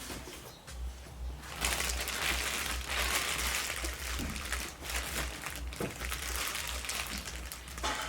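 Packaging crinkling and rustling as it is handled, louder from about a second and a half in, with a few light knocks over a low rumble.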